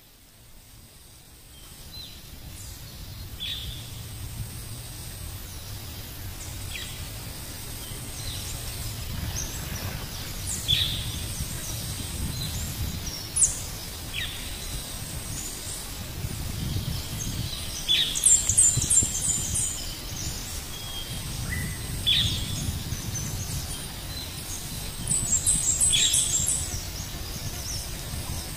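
Birds calling in short downward chirps every few seconds, with two quick runs of high notes, one about two-thirds of the way through and one near the end, over the steady low rush of a monsoon stream.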